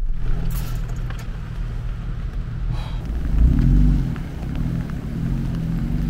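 Jeep Wrangler's V6 engine running, heard from inside the cabin. The engine note swells about three seconds in as it accelerates.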